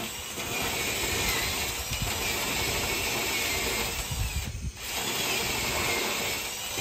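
Cordless drill drilling into a staybolt in a steel locomotive firebox side sheet, its motor whining and dipping in pitch under load. It stops briefly about four and a half seconds in, then starts again.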